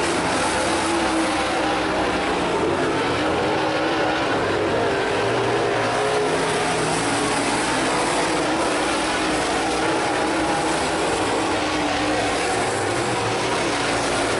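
Dirt-track super late model race cars' V8 engines running at speed, several cars together, the pitch wavering as they go around the oval.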